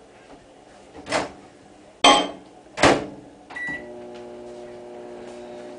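Microwave oven being shut and started to melt butter: a couple of sharp clacks about two and three seconds in, a short beep, then the oven running with a steady hum.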